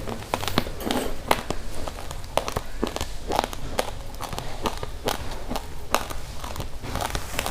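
Close-miked chewing of raw rice: dry grains cracking between the teeth in quick, irregular crunches, several a second.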